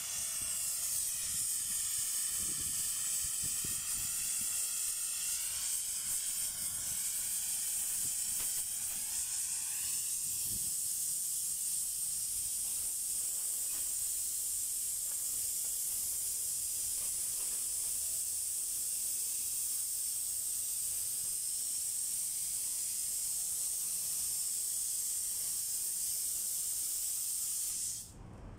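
Air plasma cutter cutting through a large steel pipe: a steady, high hiss of the arc and compressed air. Over roughly the first ten seconds it carries a wavering whine, and the sound drops out just before the end.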